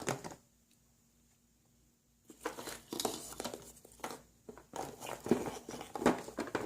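Rustling, crinkling handling noise of small objects being taken out of a box and set down. It starts about two seconds in and goes on in irregular bursts.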